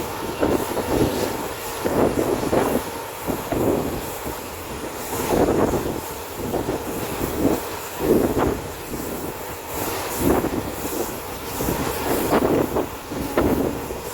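A moving passenger train heard from on board: the steady rumble and rattle of the coach's wheels running on the track, with irregular louder surges every second or two.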